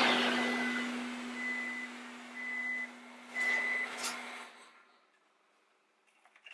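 1998–2002 Honda Accord engine running with its fuel pump unplugged: it fades, stumbles about three and a half seconds in and dies at about five seconds as the last fuel pressure in the lines is used up. A high beep sounds on and off while it runs.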